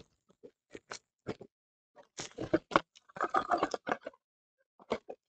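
Handling noises from trading cards and their packaging: short taps and scrapes, then a busier stretch of rustling and scraping in the middle, and a last tap near the end.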